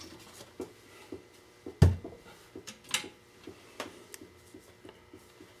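Rummaging through objects while searching for a flashlight: scattered clicks and knocks of things being moved and set down, the loudest a sharp knock about two seconds in.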